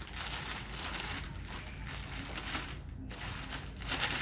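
Plastic bag crinkling and rustling as a laser toner cartridge is shaken inside it, with a brief pause about three seconds in.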